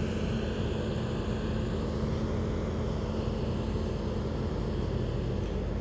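An engine running steadily, a constant low rumble with no change in pace.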